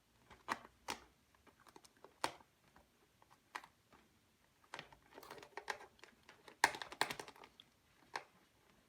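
Irregular clicks and taps of a plastic container and its lid being handled, with a denser run of sharper clicks about five to seven seconds in.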